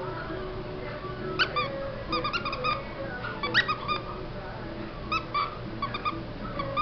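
Whoodle puppies whimpering: short, high-pitched squeaky whines, some single and some in quick runs of several.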